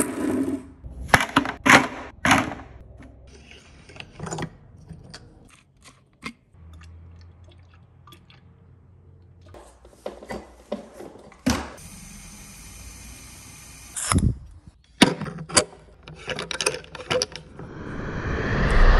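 Washing gear being handled: a string of clicks and knocks from a hose fitting and a garden hose being unhooked and dragged across tiles. A steady hiss lasts about two seconds past the middle, and a rising rush of noise comes at the very end.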